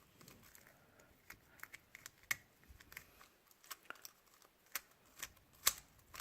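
Magnetic 3x3 speedcube (MoYu Weilong GTS V2 M) being turned, with faint, irregular clicks as its layers are turned and snap into place; the cube is new and still being broken in.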